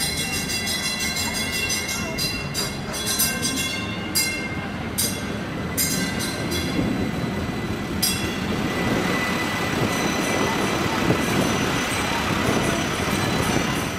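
The Grove trolley, a battery-electric double-decker streetcar on a 1950s Boston streetcar undercarriage, running on its rails. Its wheels clatter with irregular sharp clicks and knocks for the first half or so, then a steady rumble and hiss builds up over a faint steady whine.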